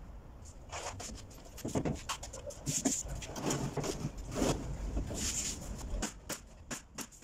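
Wood being shifted and knocked on a plywood panel, then from about six seconds in a pneumatic nail gun firing in quick succession: sharp clicks about four a second as it tacks the plywood skin onto the door frame.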